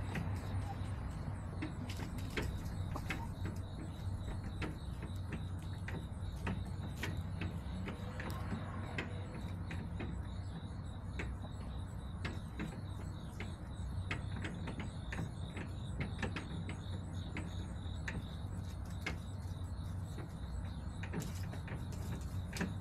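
A steady low hum with many irregular light clicks and taps scattered through it.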